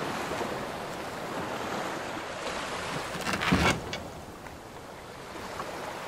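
Ocean waves washing steadily around a wooden sailing ship, with one short louder sound a little past halfway.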